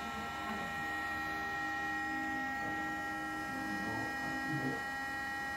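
DJI Mavic Air drone's internal cooling fan running, a steady whine made of several constant high tones.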